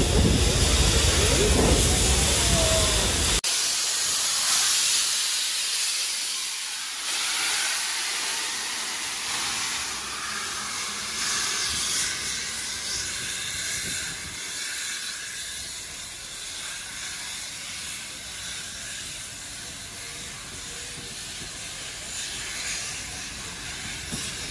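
Steam locomotive 3801 hissing as it vents steam at the front. About three seconds in the sound changes abruptly to a softer, steady steam hiss that slowly fades as the train's carriages roll past.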